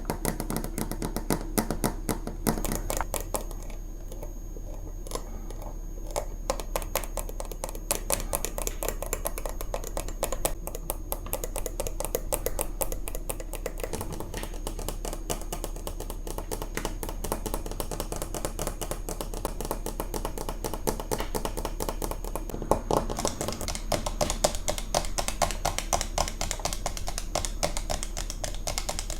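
Rapid tapping and scratching on fridge magnets: a dense, continuous run of small clicks that gets a little louder and busier about three-quarters of the way through.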